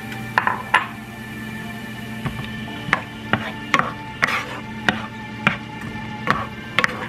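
Wooden spoon stirring shallots and garlic in oil in a ceramic-coated pan, knocking against the pan at irregular intervals, roughly once or twice a second.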